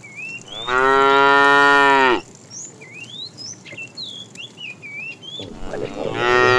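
Cow mooing: one long, loud moo lasting about a second and a half, then a second moo beginning near the end.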